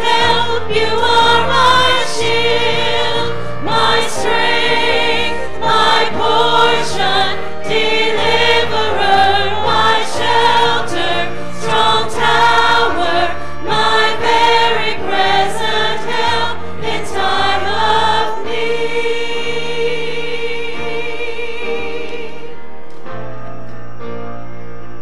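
Church choir and worship singers singing with band accompaniment, a bass line stepping underneath. About eighteen seconds in, the voices hold a long final note and drop away, leaving keyboard and bass playing on.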